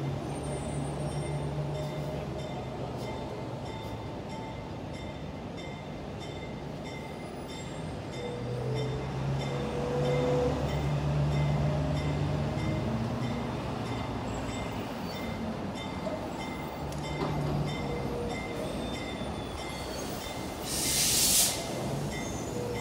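Diesel work locomotives running as they slowly haul subway cars along yard track, the engine drone swelling and easing. A short, loud hiss comes near the end.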